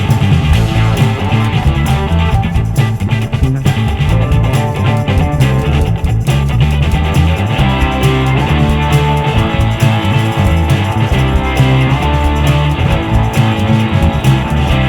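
Background rock music with guitars and bass.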